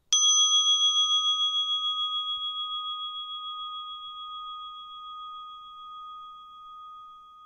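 A single struck bell-like chime a moment in, ringing out with a pulsing wobble and slowly fading away.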